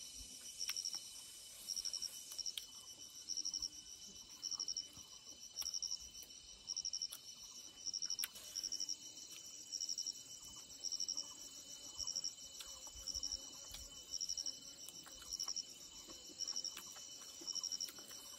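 Insect chirping: short pulsed high trills repeating about once a second, over a faint steady high whine.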